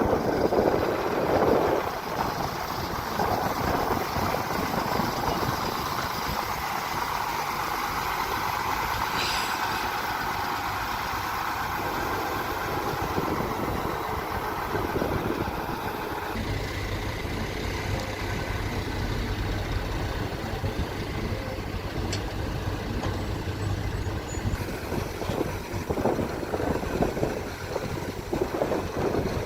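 Excavator diesel engine running steadily at work. About halfway through the sound changes and a steady low hum comes in.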